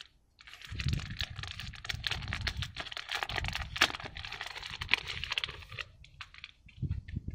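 Clear plastic bag crinkling and crackling as hands slide a stack of cardboard board-game painting pieces out of it. It starts about half a second in and runs in a dense, irregular crackle with soft handling knocks, dying away about a second before the end.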